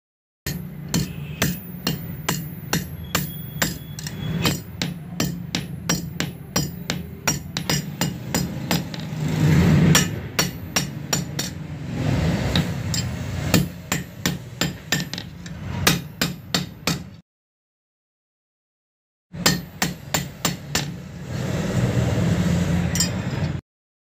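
Hammer blows on the steel tang of an old billhook laid on a block, a steady run of sharp, ringing strikes about two or three a second as the tang is hammered flat. The blows break off for a couple of seconds midway, then resume and stop suddenly near the end.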